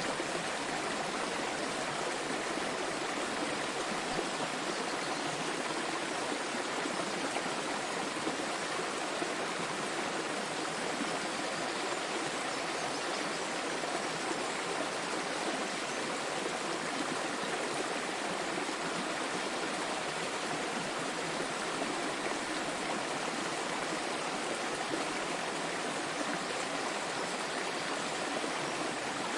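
Small waterfall splashing and flowing steadily: an even, unbroken rush of water.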